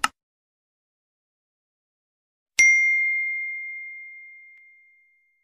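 Subscribe-button animation sound effect: a short mouse click at the start, then about two and a half seconds in, a single bell ding that rings out and fades away over some two and a half seconds.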